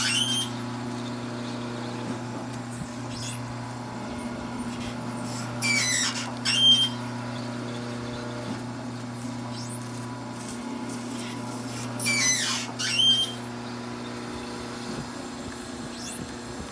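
Oil well pumpjack running: a steady low drone from its drive, with a high squeal that falls and then rises in pitch about every six seconds as the polished rod changes direction in the stuffing box.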